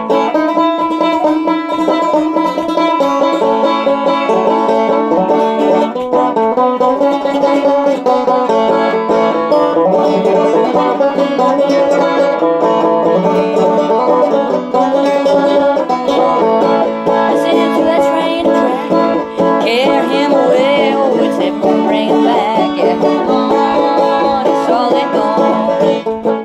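Banjo playing a bluegrass instrumental break between sung verses, with quick, continuous picked notes.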